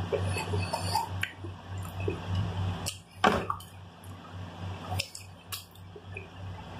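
Close-up eating sounds: chewing Doritos tortilla chips, with wet lip smacks and clicks at irregular intervals, the sharpest about three seconds in. A low pulsing hum underneath stops at about the same moment.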